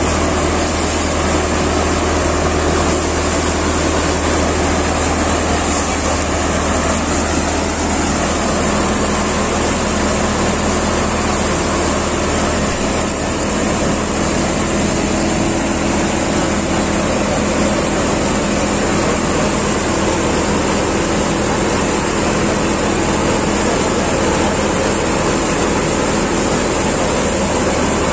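Prachi paddy thresher running steadily under load while threshing paddy, a continuous loud mechanical hum.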